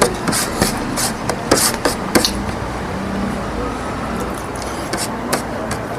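Eating noises: a string of sharp, irregular crunches and clicks while a mouthful of pig head is chewed, over a steady background rumble.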